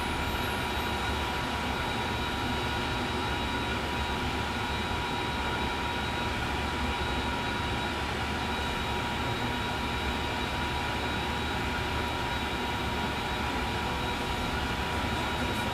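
Steady whirring of a bench soldering fume extractor's fan running, with a few thin whining tones held over it.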